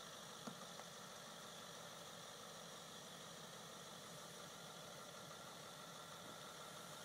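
Range Rover engine idling faintly and steadily as the vehicle crawls slowly over a rock step, with a small knock about half a second in.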